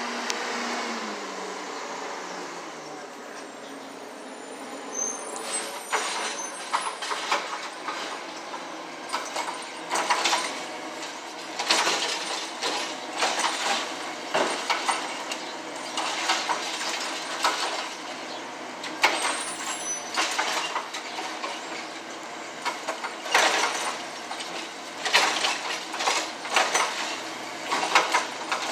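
Automated side-loading garbage truck emptying a green-waste cart. The diesel engine runs steadily, settling lower in the first couple of seconds, and from about five seconds in come repeated clanks and bangs as the cart and lifting arm are worked over the hopper.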